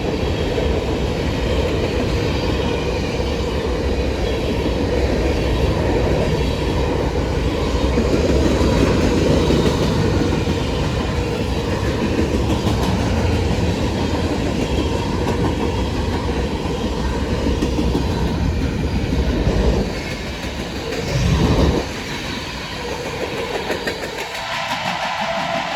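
Freight train cars rolling past on the rails, a steady rumble with wheel clickety-clack. Near the end a locomotive horn starts sounding.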